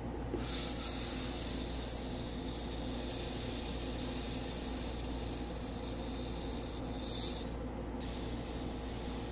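Dry black sesame seeds rustling and rubbing in a bowl, a steady hiss with two brief brighter spells.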